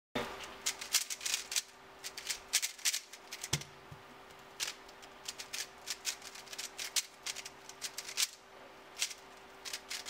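YuXin 3x3 speedcube's plastic layers clacking as they are turned fast by hand, in quick irregular runs of clicks with brief pauses between them.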